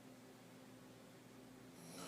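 Sleeping woman's open-mouth throat snoring: a quiet pause between snores, with the next snore starting near the end.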